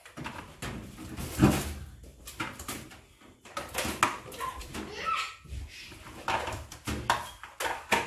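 Knocks and clatter of a white plastic electric kettle and its lid being handled on a kitchen worktop, a string of sharp taps and bumps with the loudest about a second and a half in.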